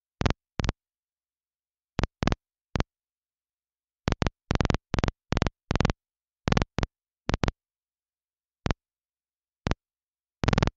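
Air-band radio receiver crackling: about twenty brief bursts of static, spaced irregularly, as the squelch opens and shuts on short keyed transmissions without speech. There is dead silence between the bursts.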